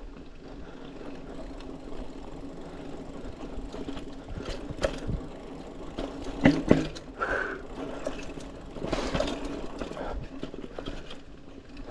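Mountain bike riding over a dirt forest trail: tyre noise on the dirt with a steady low hum, and the bike knocking and rattling over bumps, loudest about halfway through.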